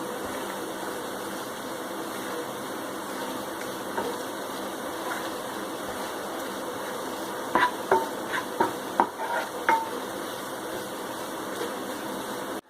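Besan (gram flour) roasting in desi ghee in a pan on a low flame, stirred continuously with a spoon: a steady sizzle under the stirring. From about seven and a half seconds in comes a run of sharp scrapes and knocks of the spoon against the pan, lasting a couple of seconds.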